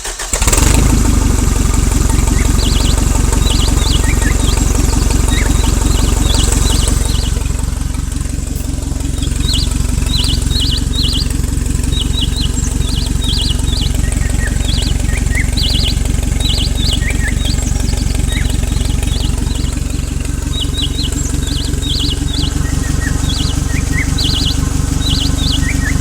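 Small engine running steadily, cutting in abruptly about half a second in, with birds chirping over it.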